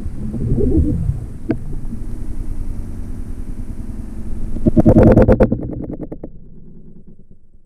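Underwater, a speargun is fired at a fish: a loud burst of rapid rattling clicks about five seconds in that fades over the next second or two. Before it, a low steady rumble of water against the camera housing, with a single sharp click about a second and a half in.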